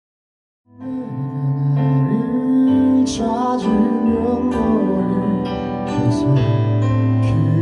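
After a brief silence, a digital piano comes in about a second in with slow, sustained ballad chords, and a man's voice sings over it.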